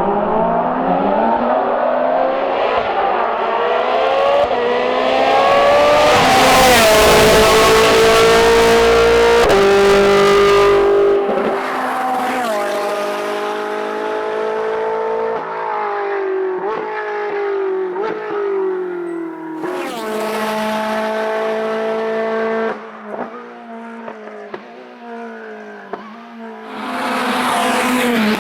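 Hillclimb race car engine at full throttle, revs climbing in each gear and dropping at each upshift. It grows loud as the car passes close by, then fades as it climbs away, and another car's engine rises near the end.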